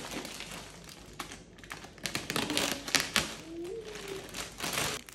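Plastic mailer bag rustling and crinkling as it is handled and cut open with scissors, with several sharp clicks and snips. A baby babbles briefly twice in the middle.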